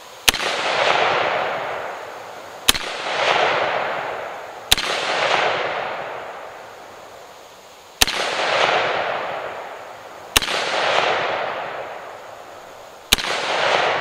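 Six shots from an AR-15 rifle in 5.56, fired singly two to three seconds apart. Each sharp crack is followed by an echo that dies away over a second or two.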